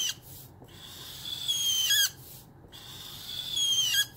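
Zongii alcohol marker nib squeaking across paper in long strokes, about one every two seconds: each squeak grows louder and slides down in pitch before stopping sharply. The marker is nearly out of ink.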